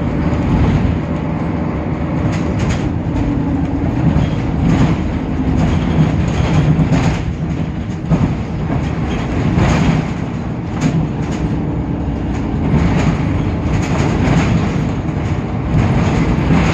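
Temsa Avenue LF city bus on the move, its DAF PR 228 diesel engine running under a steady low drone, with frequent knocks and rattles from the body and running gear over the road.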